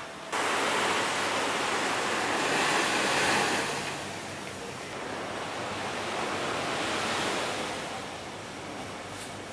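Surf washing onto a sandy beach, a steady rush that swells twice and dies back. It starts abruptly at full strength.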